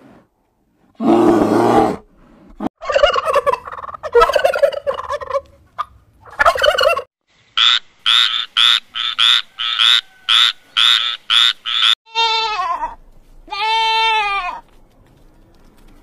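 A string of animal calls: a bear's grunting call near the start, then a frog croaking in a steady run of short pulses, about three a second, and finally two long, wavering goat bleats near the end.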